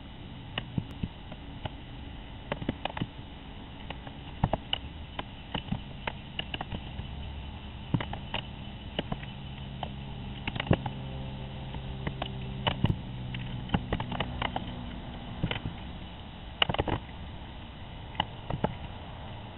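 Raccoon clambering on plastic nest boxes and PVC perch rails while raiding eggs: irregular clicks, taps and scrapes of claws and paws on plastic, with a low steady hum for a few seconds in the middle. Heard thin and band-limited through a coop security camera's microphone.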